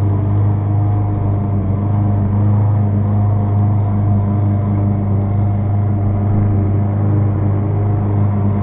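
Walk-behind gas lawn mower engine running steadily, a constant droning hum.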